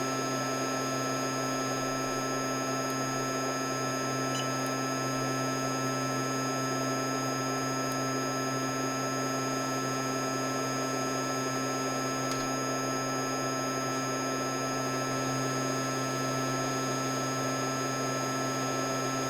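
Steady electrical hum with a constant airy hiss from running bench equipment at a microsoldering station, unchanging throughout.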